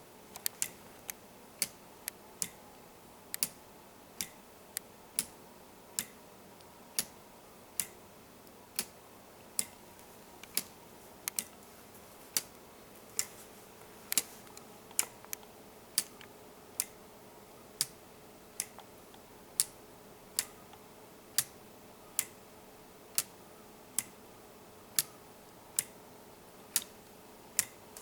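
Escapement of a homemade weight-driven pendulum clock ticking: sharp clicks at a slightly uneven pace of one to two a second, as the escapement blades strike alternately to keep the pendulum swinging.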